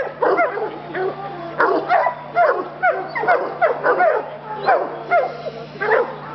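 Treeing hound barking up a tree in rapid short barks, about three to four a second, each falling in pitch: a hound's treeing bark.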